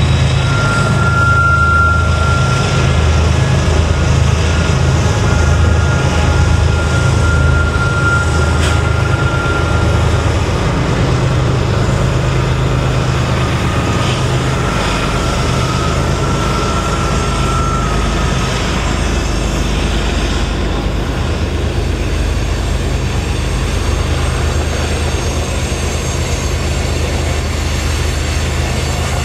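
BNSF diesel-electric freight locomotives passing at close range, their engines running with a steady low drone, then freight cars rolling by. A thin high whine sounds on and off through the first half.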